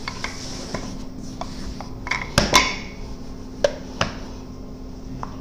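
Kitchen clatter: a few sharp knocks and clinks, a pair about two and a half seconds in and two more around four seconds, over a steady low hum.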